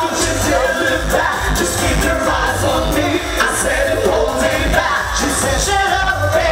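Several male singers on handheld microphones performing a pop song live, with singing voices over a pulsing heavy bass beat.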